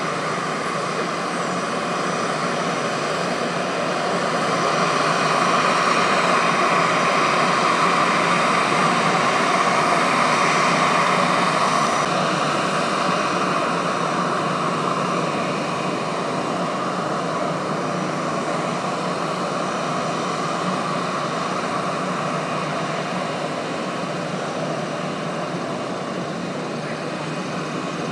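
Steady jet engine noise from a taxiing Airbus A321 airliner close by. The noise grows louder from about four seconds in, peaks around ten seconds and then eases back.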